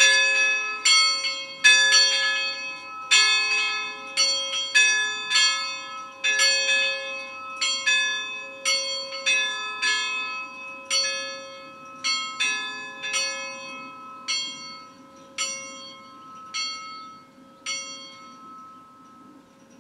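Five tuned church bells in A, cast by Allanconi, swung by hand in a full peal that is dying away: the strokes come thick at first, then grow sparser and fainter as the bells are brought to rest. The last stroke falls near the end, and the bells' hum is left ringing.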